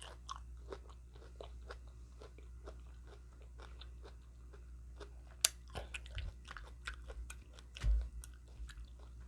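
A person chewing and biting food close to the microphone: a run of small crunches and mouth clicks, with a sharper click about halfway through and a low thump a little before the end.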